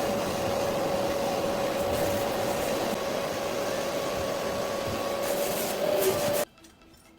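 An electric motor-driven machine running steadily with a constant whine over a loud rushing noise, stopping abruptly about six seconds in.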